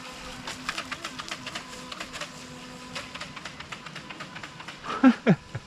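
Small brushed electric motor of an RC jet sprint boat running at a distance with a steady hum, against a patter of quick ticks and splashes. About five seconds in, two short loud sounds that fall in pitch.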